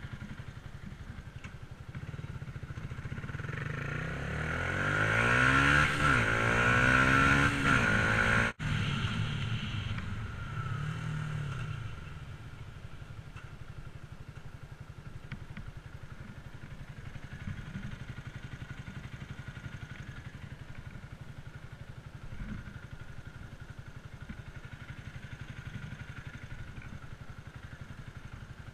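Yamaha sport motorcycle's engine running low, then revving up as it pulls away, its pitch climbing for a few seconds. A sudden brief dropout comes about eight and a half seconds in, then one more short rise. After that it settles back into steady low running.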